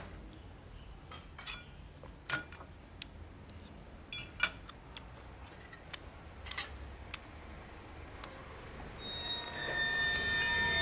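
Metal spoon clinking against ceramic bowls and plates while someone eats, in about ten scattered, irregular clinks. Soft background music fades in near the end.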